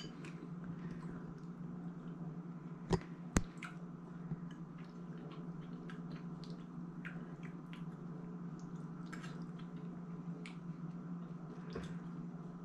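A fork picking at cooked meat in a bowl while a man eats it. Soft squishy sounds and small clicks come over a steady low hum, with two sharper clicks about three seconds in.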